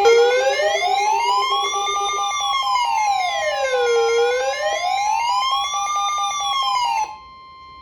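Electronic emergency-alert siren tone slowly wailing up and down, about four seconds per rise and fall, layered over a steady alert tone and a pulsing beep-like tone. The siren and beeps cut off abruptly near the end, leaving a fainter steady tone.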